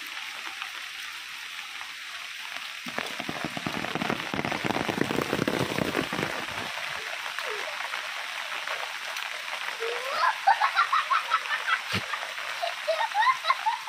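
Steady heavy rain falling, with a stretch of heavier patter a few seconds in. Near the end comes a quick run of short, rising chirps, the loudest sounds here, and a single sharp knock.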